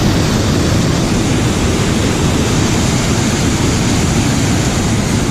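Waterfall rushing loudly and steadily, its creek in high flow after heavy rain.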